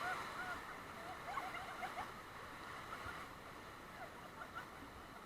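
Steady rush of river water with a run of short, high chirps over it, thickest in the first two seconds and thinning out later, while the whole sound slowly fades.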